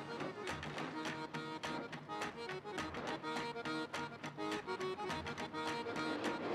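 Background music with a fast, steady beat under held melodic notes.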